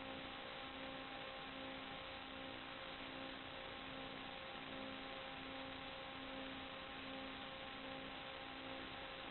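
Steady electronic hiss with faint constant hum tones and a lower tone pulsing on and off about every half second: the empty audio channel of an analog FPV video link, with no engine or wind sound on it.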